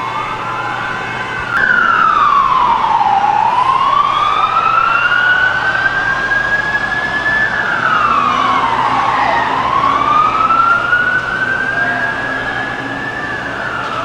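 Emergency vehicle siren wailing in slow cycles, each rising over about four seconds and dropping back in about a second and a half. It gets louder about a second and a half in, and a second, fainter siren wails underneath.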